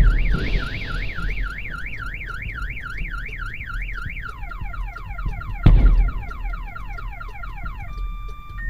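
Car alarm set off by the meteor's shock wave, cycling through its tones: a fast up-and-down warble, then rapid falling chirps, then short steady tones near the end. The first blast is dying away at the start, and a second loud bang comes nearly six seconds in.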